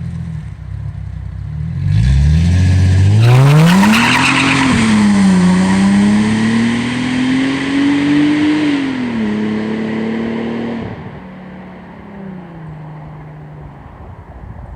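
Chrysler Crossfire SRT-6's supercharged 3.2-litre V6 accelerating hard. Its pitch climbs steeply about two seconds in with a brief rushing hiss, dips as if at a gear change and climbs again. It then drops twice and runs quieter and lower for the last few seconds as the throttle eases off.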